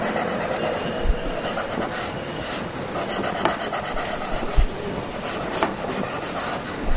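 Graphite pencil rubbing and scratching across drawing paper in quick, broad side-of-the-lead shading strokes. A steady dry rasp, with a few sharper strokes standing out.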